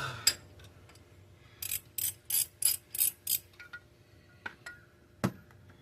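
Socket ratchet clicking in a quick run of about six strokes, then a few scattered clicks and a sharp knock near the end. A tight knock sensor is being backed out of the valley of a 5.3 LS V8.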